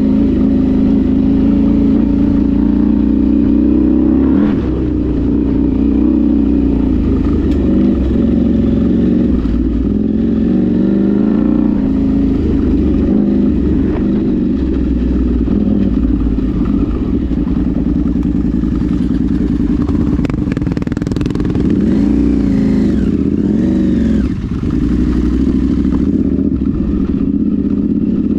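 Off-road vehicle's engine running continuously under way, its revs rising and falling.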